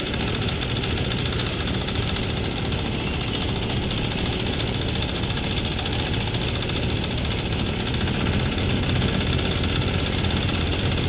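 Farm machine's engine running steadily at a constant speed.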